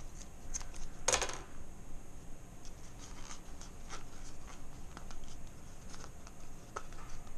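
Scissors snipping through cheesecloth once, about a second in, then faint rustling and small clicks as the cloth is handled.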